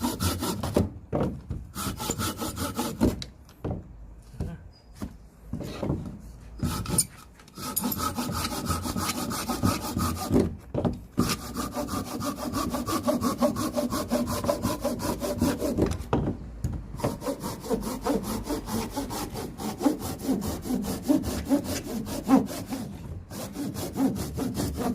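Hand saw cutting through a bone-dry firewood log in steady back-and-forth strokes, with a few short pauses. The wood is so dry and hard that it cuts slowly.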